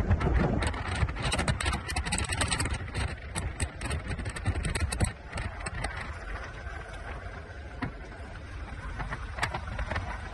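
A car driving, heard from inside: a steady low rumble of road and engine noise. Many sharp crackles come through in the first half and thin out about five seconds in.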